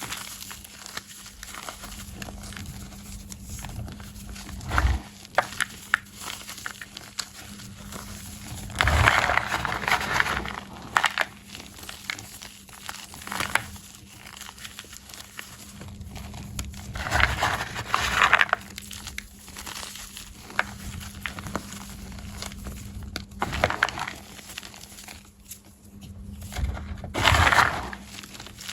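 Soft blocks of gym chalk being crushed, giving a crunching, crumbling crackle that swells into three louder bursts of crunching, roughly eight seconds apart.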